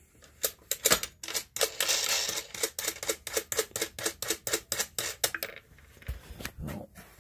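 Small metal hardware being worked off a quarter-inch bolt through a plywood board: a fast run of small metallic clicks and rattles, about five a second, with a rasping stretch about two seconds in. It stops after about five seconds, followed by a couple of soft knocks.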